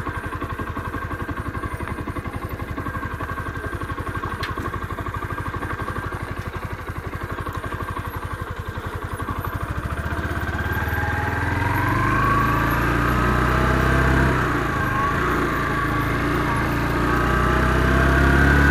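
Motorcycle engine putting along at low speed with a steady beat. From about ten seconds in it gets louder and accelerates, the revs climbing and dipping as it pulls away.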